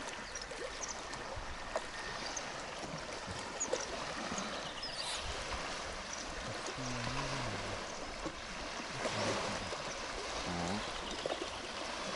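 Steady wash of water lapping at the shore under wind, with a few faint high chirps scattered through it.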